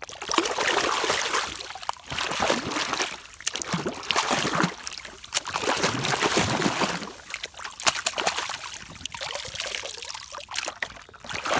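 Pond water sloshing, splashing and trickling as a muddy plastic toy gun is swished and rubbed by hand in it, in repeated surges every second or two, with a few light clicks.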